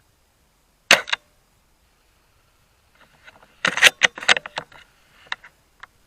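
Novritsch SSG24 spring-powered bolt-action airsoft rifle: one sharp shot crack about a second in, then a quick run of clicks and clacks as the bolt is worked to cock the spring for the next shot.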